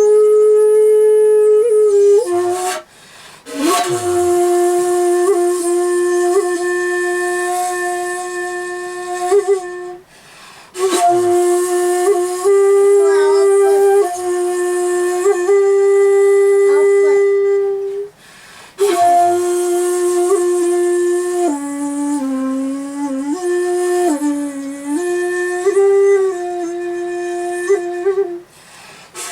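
Solo shakuhachi (end-blown bamboo flute) played in komuso honkyoku style: long held notes with an airy tone and slight pitch bends, in long phrases broken three times by short pauses for breath.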